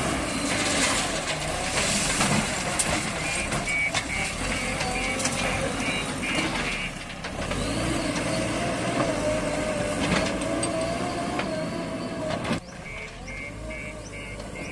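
JCB 3DX backhoe loader's diesel engine working under load with a wavering whine, and occasional sharp knocks. A repeating high beeping alarm sounds at times. The machinery sound drops abruptly near the end.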